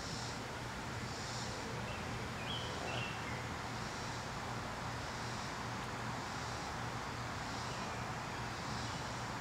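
Steady outdoor background noise with a low hum and a faint high hiss that swells and fades every second or so, and a bird chirping briefly about two and a half seconds in.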